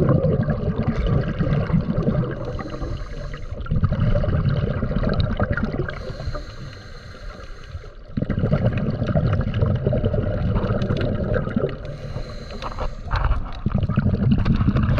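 Underwater noise while diving: low bubbling and rushing water that swells and eases in surges every few seconds.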